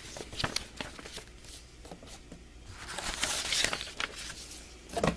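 Paper instruction booklets rustling and shuffling as they are handled, with scattered light taps. The rustling swells about three seconds in, and a short thump comes near the end.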